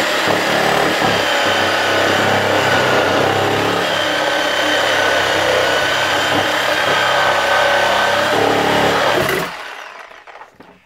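Cordless reciprocating saw running steadily, cutting into the wooden door, with a faint whine over the cutting noise; it stops about nine and a half seconds in.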